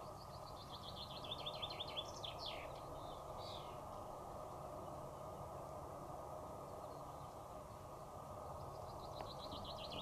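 A songbird singing a phrase of quick repeated notes that fall in pitch and end in a short flourish, once near the start and again near the end, over a steady rushing background noise.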